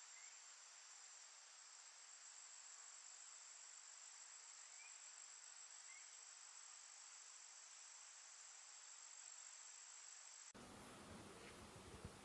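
Faint, steady high-pitched insect trilling over a soft hiss, cut off abruptly about ten seconds in by a rougher background noise with a click near the end.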